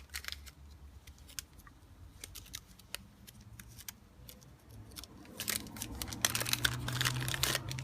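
Packaging being handled and unwrapped by hand: scattered light clicks and rustles, growing busier and louder from about five seconds in.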